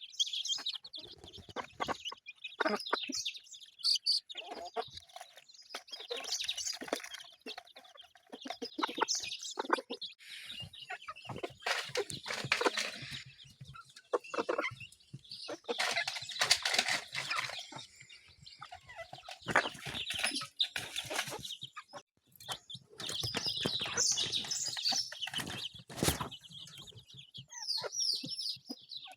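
Chickens clucking on and off, with a few short knocks and, near the end, a run of quick falling peeps from young chicks.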